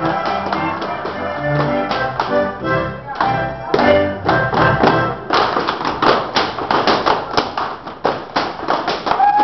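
Alpine folk dance music with steady held tones for the first five seconds or so. The music then gives way to a rapid, dense run of sharp slaps and stamps: Schuhplattler dancers striking their thighs and shoe soles and stamping on a wooden floor.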